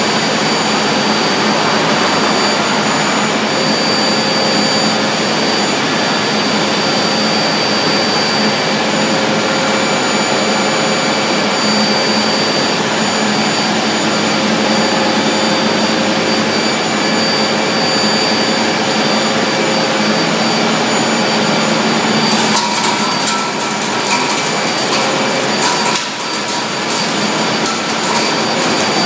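Olive-processing machinery running: the olive hopper and cleated elevator conveyor feeding the press, giving a loud, steady whirring hum with several steady whines on top. About three quarters of the way through, a busy rattling and clattering joins in.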